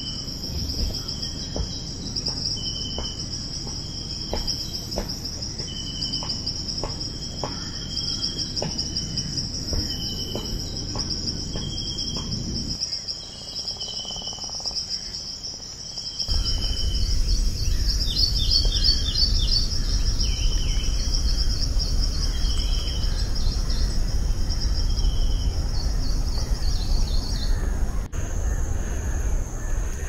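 Crickets keeping up a steady, high, pulsing trill, with short repeated chirps over it. Footsteps crunch on dry leaves through the first half, and a few bird chirps come in around the middle. The insect trill cuts off about two seconds before the end.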